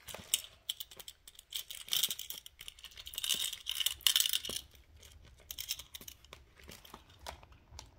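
Rustling and crinkling of paper and plastic as cash envelopes and binder pages are handled, with small clicks and taps; busiest in the first half, then fainter handling sounds.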